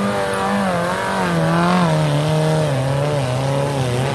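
Off-road 4x4's engine revving hard under load, its pitch rising and falling and easing down toward the end.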